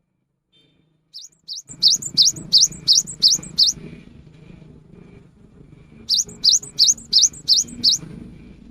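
Cinereous tit (gelatik batu) singing two phrases of quick, repeated rising notes, about three a second. The first phrase starts about a second in and the second comes near the end.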